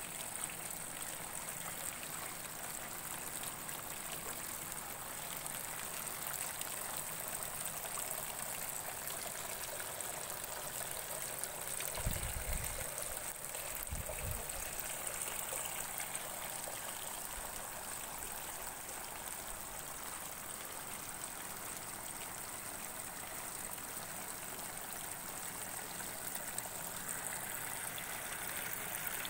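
Steady trickle of running water, with a faint steady high tone above it and two brief low thumps about halfway through.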